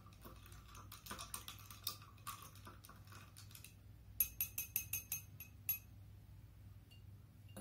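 Ice cubes clinking against a glass as a chopstick stirs a mojito. A quick run of light clicks is followed, about four to six seconds in, by a handful of sharper, ringing clinks.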